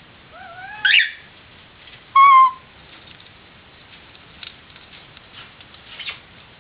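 Pet parrot calling: a rising squawk about a second in, then a loud, clear whistle held for about half a second, followed by a few faint short chirps.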